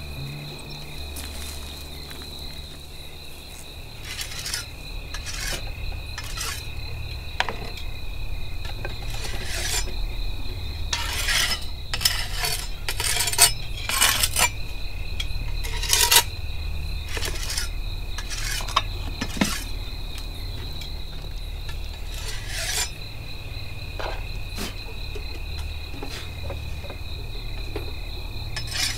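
Steady high-pitched insect drone over a low rumble, broken by irregular scraping and clicking sounds that come thickest about halfway through.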